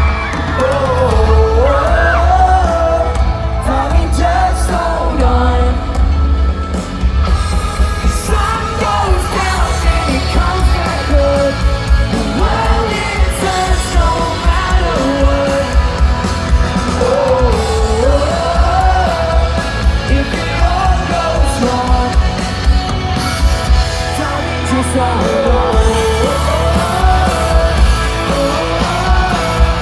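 Live pop-rock band in an arena: a male lead singer over electric guitar, drums and heavy bass, with fans screaming and yelling, heard from within the crowd.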